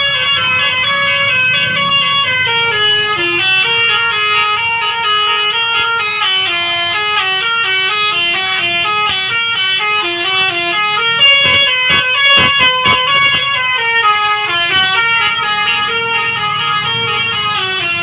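Bus telolet horn, a multi-tone horn playing a fast melody of notes that step up and down, with a stuttering run of short blasts about two thirds of the way through. A low engine rumble runs underneath.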